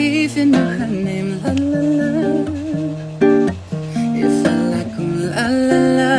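Acoustic guitar played as accompaniment while a man and a woman sing a song together, the voices holding long notes with vibrato over the chords.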